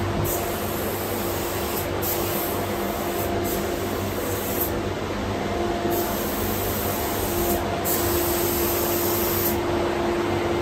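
Steady rush of air with a faint hum from paint spray-booth extraction and ventilation machinery.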